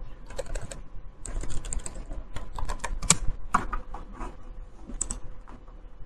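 Typing on a computer keyboard: an irregular run of short key clicks.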